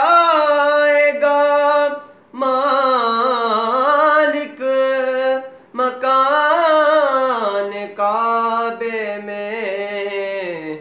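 A young man singing a manqabat solo without accompaniment, in long phrases with bending, ornamented pitch, pausing briefly for breath about two and six seconds in.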